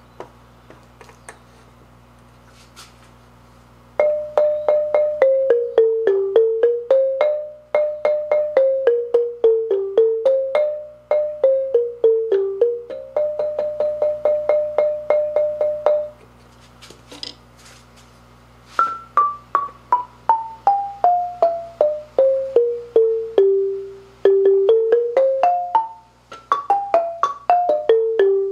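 Small shop-made wooden student marimba struck with a mallet: quick runs of notes in a repeating falling-and-rising figure, then after a short pause a long descending scale from high to low and a rising run near the end. The first few seconds hold only a few light clicks as the keys are handled.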